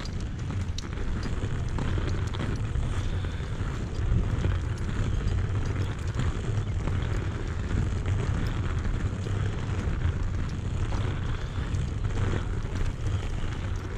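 Steady gritty rumble of inline skate wheels rolling over the promenade pavement.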